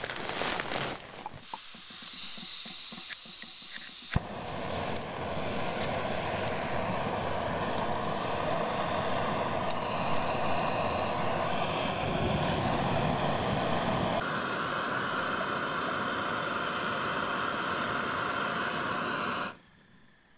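Backpacking canister gas stove: a sharp click about four seconds in, then the burner hissing steadily under a pot. The hiss shifts in tone partway through and cuts off suddenly just before the end.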